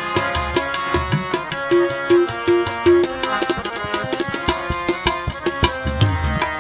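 Instrumental interlude of Sikh kirtan: tabla keeps a steady rhythm, its bass drum strokes bending upward in pitch, under held harmonium notes, with a run of four short repeated notes about two seconds in.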